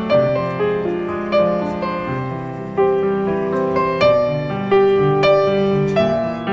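Soft background piano music, slow notes struck one after another over sustained lower chords.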